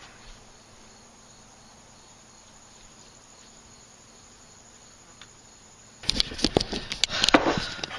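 Crickets chirping faintly and steadily. About six seconds in, a loud clatter of sharp knocks and clicks begins, dishes and utensils being handled.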